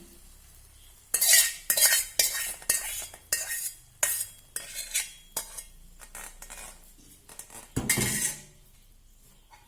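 A spoon stirring coconut pieces fried in ghee into a pot of thick banana payasam, clinking and scraping against the pot about twice a second, then stopping.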